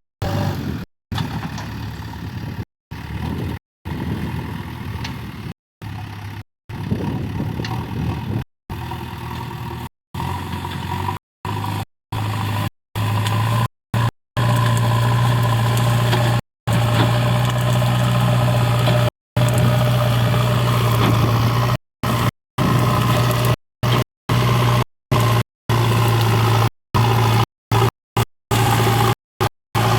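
JCB 3DX backhoe loader's diesel engine running. About a third of the way in its note steadies into a louder low hum. The sound cuts out briefly again and again.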